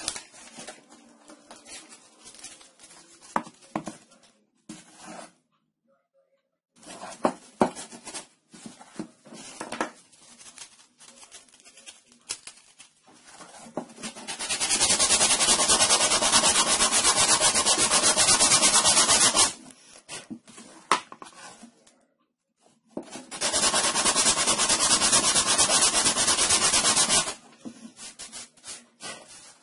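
Aerosol spray can spraying in two long steady hisses of about five and four seconds, the first about halfway through. Handling clicks and knocks come before and between them.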